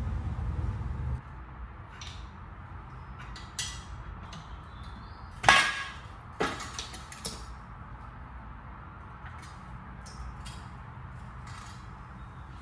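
Metal tools clanking and striking against car suspension parts: several scattered knocks, with one loud metal strike about five and a half seconds in and a sharper one a second later. A low rumble runs through the first second.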